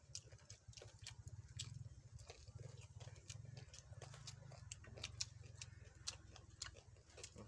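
Close-up eating sounds: irregular wet clicks, smacks and crunches of people chewing spicy papaya salad and raw leafy greens, over a low steady hum.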